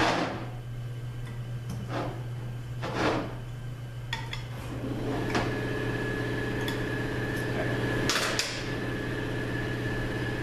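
Metal clinks and knocks of a steel T-handle hex wrench in the small bolts of a steel transmission clutch drum as they are tightened down, a handful of sharp strikes a second or so apart. About halfway through, a steady machine drone with a faint whine starts and keeps running.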